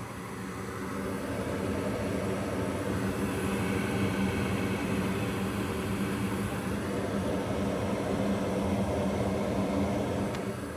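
Noisy draft inducer fan of a Goodman gas furnace running: a steady mechanical drone with a hum over a rushing hiss, growing louder about a second or two in. The noise comes from the worn inducer fan, which the owner went on to replace.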